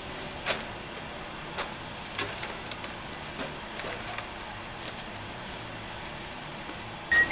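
Scattered light clicks and knocks as a removed RV window frame is handled and carried down an aluminium stepladder, over a steady background hiss. Right at the end comes a sharper knock and a short high whistle.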